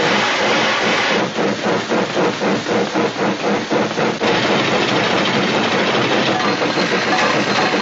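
Cartoon steam locomotive pulling away: a hiss of steam, then rhythmic chugging at about four puffs a second from about a second in, running together into a steady rush about four seconds in.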